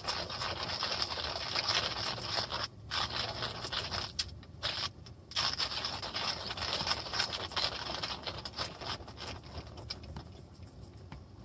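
Hand-cranked coffee grinder crushing coffee beans: a continuous gritty scraping with a few brief pauses, growing quieter near the end.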